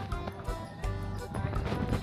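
Music playing, with a few short knocks and clatters over it.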